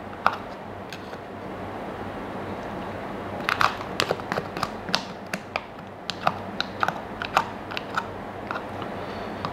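A spoon clicking and scraping against a small plastic tub as date paste is scooped out into a pot: a loose run of light, irregular clicks starting a few seconds in, over a low steady hum.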